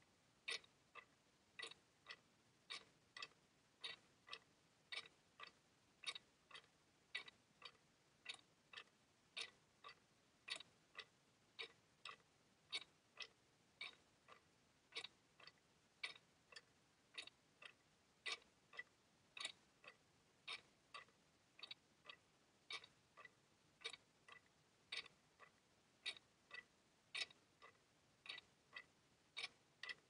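Clock ticking steadily and evenly, about two ticks a second.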